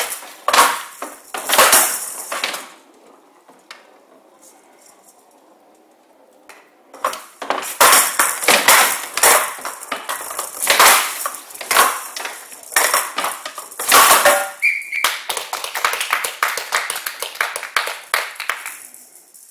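Showdown rally: the ball, which has small metal pellets inside, rattling as it rolls across the wooden table, with sharp knocks as the bats strike it and it bangs off the side walls. A short exchange at the start, a few seconds of near quiet, then a long rally from about seven seconds in.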